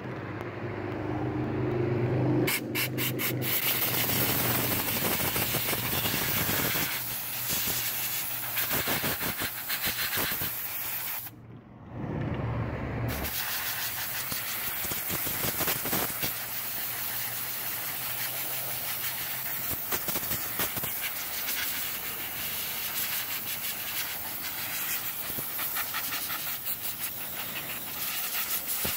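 Air gun blowing long hissing blasts of air over an old vacuum-tube TV chassis to clear off dust. It starts a couple of seconds in and stops for about a second near the middle, while a low hum shows through.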